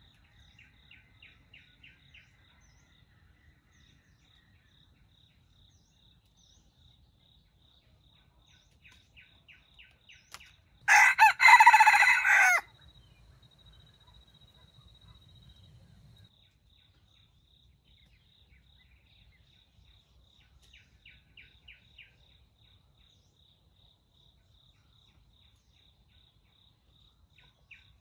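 Red junglefowl rooster crowing once, a short clipped crow of about a second and a half, about eleven seconds in. Faint repeated chirping of small birds comes before and after it.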